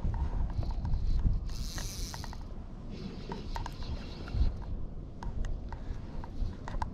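Fly reel's click-and-pawl ratchet clicking irregularly as line moves on and off the spool while a hooked smallmouth bass is played.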